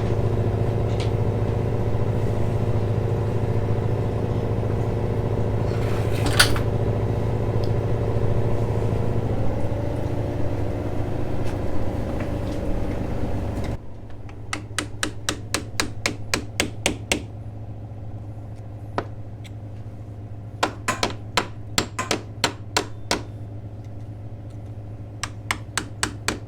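A steady mechanical drone that cuts off abruptly about halfway through, followed by runs of sharp hammer blows on metal, several a second, as a seized nut on a mast stay fitting is bashed off.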